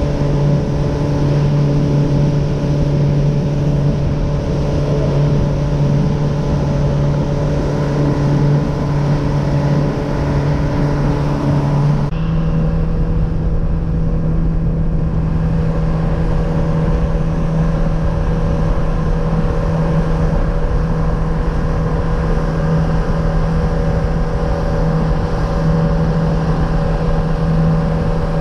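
Motorboat engine running steadily at cruising speed with the rush of wind and water. Its pitch steps up slightly about twelve seconds in.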